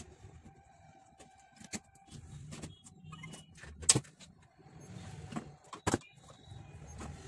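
Handling knocks and clicks as a laser printer's power supply board is laid down and turned over on a workbench and a multimeter is set beside it: a few sharp clicks, the loudest about four and six seconds in.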